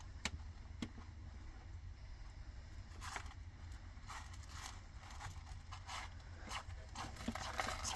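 Kitten scratching and digging in cat litter: a run of short, gritty scrapes that come thicker in the second half, with a couple of light clicks about a second in.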